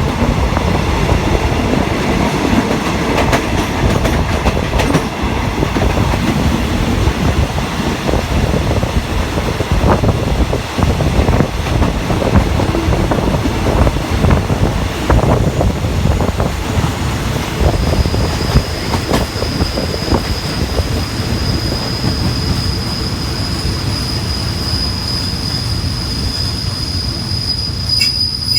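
Passenger train rolling along, its wheels clattering over rail joints with a heavy rumble; about two-thirds of the way in a steady high-pitched brake and wheel squeal sets in and holds as the train slows to stop at a halt.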